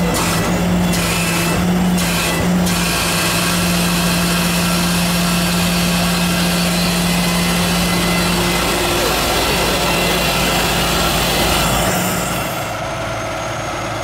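Heavy truck engine running steadily with a constant low hum under a wash of noise. Near the end the engine sound drops away.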